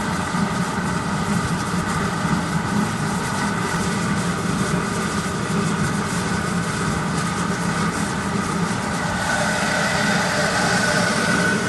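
Jetfire 33 LPG forced-air gas heater running: a steady roar of burner and blower fan with a low hum and a higher whine. The whine grows stronger about nine seconds in.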